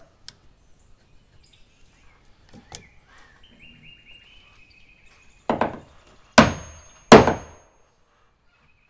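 Three hammer blows on the wooden shed framing, a little under a second apart, the last two the loudest. A short metallic ring follows the second blow.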